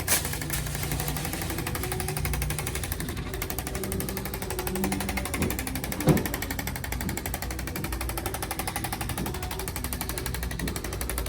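A handheld percussion tool hammering rapidly and steadily, with one sharp crack about six seconds in.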